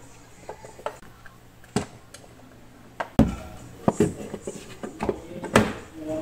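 Wooden kickboard board and wiring being handled and fitted under a cabinet: a few sharp knocks, with heavier thumps about three seconds in and again near the end.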